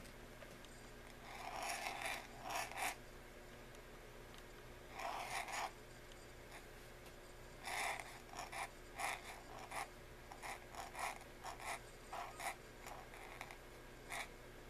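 Pointed dip-pen nib scratching across paper while writing calligraphy: a few longer strokes in the first six seconds, then a quick run of short scratches from about eight seconds in.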